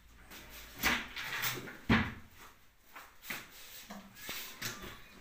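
Large drawers of a TV unit being pulled open and pushed shut, giving several sudden knocks, the loudest about two seconds in.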